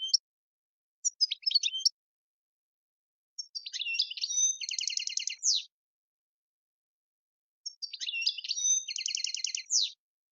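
European goldfinch singing: a short twittering phrase about a second in, then two longer song phrases of quick twitters, each ending in a fast rattling trill and a final sliding note, with silence between.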